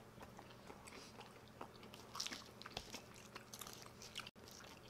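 Faint close-up chewing and biting of chicken wings: soft, wet mouth clicks and crackles scattered irregularly.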